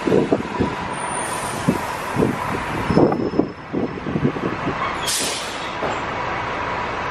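Open-top double-decker tour bus running, with wind buffeting the microphone in short low gusts. About five seconds in comes a brief hiss of air brakes as the bus pulls up at a stop.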